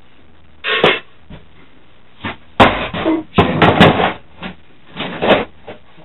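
Steel PC case being handled and laid down on its side on a table: a few metal knocks and clatters, the loudest and longest cluster about halfway through, a shorter one near the end.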